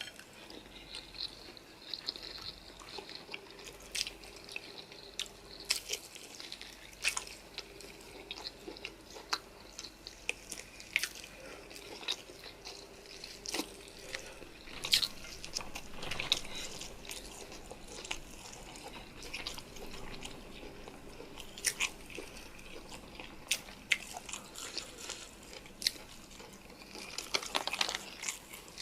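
Close-miked eating of spicy noodles and chicken: chewing and biting, with many irregular sharp crunches and clicks.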